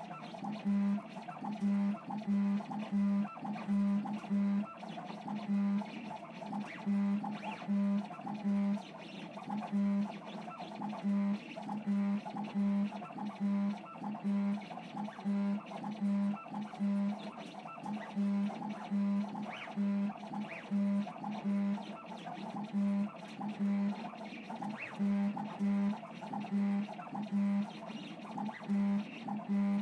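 DIY CNC machine's stepper motors humming in short, repeated bursts, about one and a half a second, as the axes drive a non-rotating drag engraver through the strokes of letters in acrylic.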